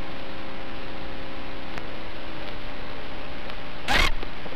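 Steady static hiss from an analog FPV video receiver's audio channel, with faint hum tones and a short, loud crackle about four seconds in.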